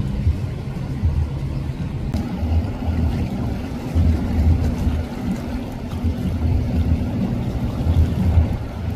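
Motor yacht running at speed under engine power, a low, uneven rumble with the wash of its bow wave in the water.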